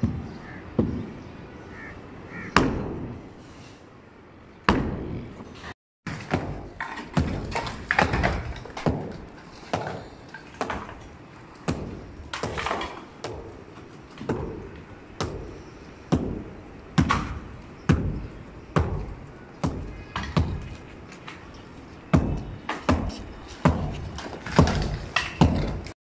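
Pickaxe blows striking a concrete roof slab, a sharp impact about once a second, with broken concrete cracking and falling.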